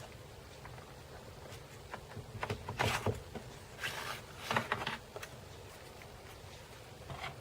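Short clicks and scrapes of a screwdriver and hands working on a laptop's plastic case, coming in two bunches around the middle, over a faint steady hum.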